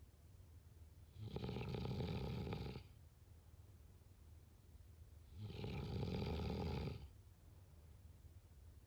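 A person snoring: two long snores about four seconds apart, each lasting about a second and a half, with much quieter stretches between them.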